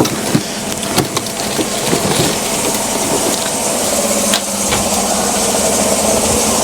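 2014 Chevrolet Silverado's 5.3-litre V8 idling steadily with the hood open, with a few faint clicks. The scanner logs misfires on cylinder 6.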